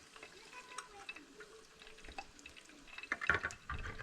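A utensil stirring and scraping in a pan of frying chicken, with scattered light clinks and a louder cluster of knocks about three seconds in.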